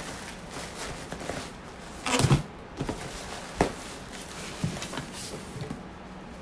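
Cardboard shipping package being handled and opened: rustling and scraping, with a loud burst of rustling about two seconds in, then a few sharp taps.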